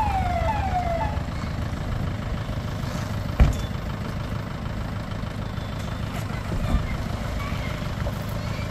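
Street traffic: a steady low rumble of engines, with a motor scooter riding past. Two short falling whistles sound right at the start, and there is a single sharp knock about three and a half seconds in.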